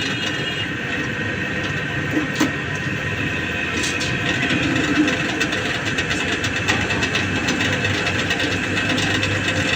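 Steady mechanical running noise, an engine or machine holding an even note, with a few sharp metallic clicks and knocks over it.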